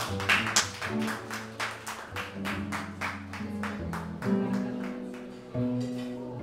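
Jazz guitar strumming chords in an even pulse, about four a second, over sustained upright double bass notes; the trumpet is not playing.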